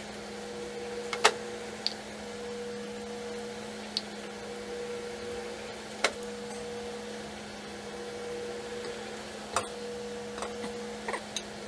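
A steady low electrical hum, with a few sharp clicks and knocks of metal and plastic mixer gearbox parts being handled and set in place, about four over the stretch.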